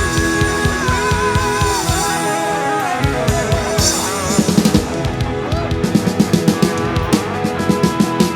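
Live rock band playing: held electric guitar notes that bend in pitch over a drum kit, with a fast run of drum hits in the second half.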